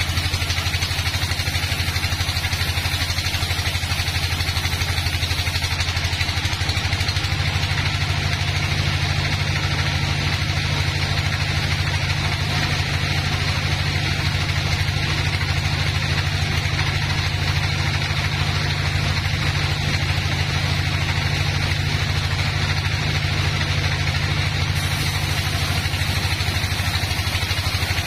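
Log band sawmill running steadily as its blade rips through a long teak slab: a steady low drone from the drive with a hiss of cutting above it.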